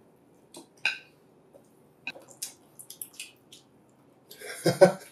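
A lime wedge squeezed over a plate of noodles and chopsticks clicking against the ceramic plate while stirring: scattered small clicks and squishes. A louder, brief burst comes near the end.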